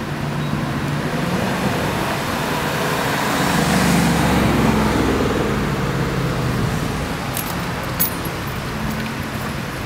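Road traffic on the street: cars driving past, one passing close and loudest about four seconds in before fading. A few light clicks near the end.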